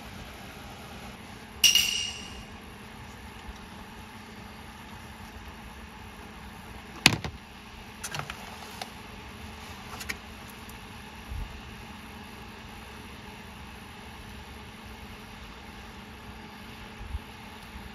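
Kitchen handling sounds over a steaming pot of simmering nabe: a ringing metallic clink about two seconds in, a sharp knock about seven seconds in, then a few light clicks and soft thumps as greens and chopsticks are handled at the pot.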